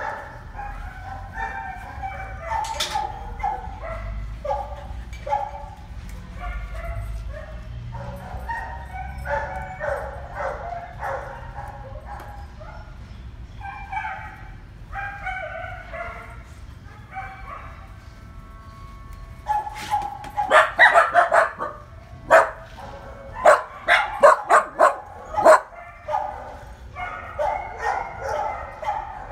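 Dogs whining and yipping in a near-continuous string of short high calls, with a run of loud, sharp barks about two-thirds of the way through.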